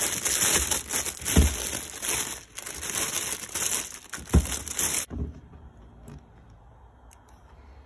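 Plastic packaging crinkling and rustling as it is pulled open and off a new air filter, with a couple of low thumps. The crinkling stops abruptly about five seconds in.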